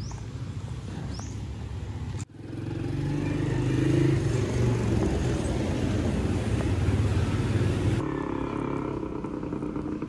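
Street ambience with a motor vehicle engine running close by. It comes in suddenly a couple of seconds in as a low rumble and stays loud for about six seconds, then drops away to quieter outdoor background near the end.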